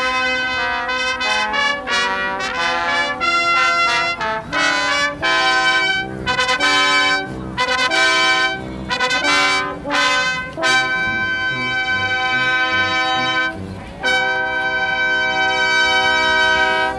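Live brass ensemble of trumpets, French horns, trombone and tuba playing: short detached chords at first, then two long held chords in the last seven seconds, the music ending as the final chord is cut off.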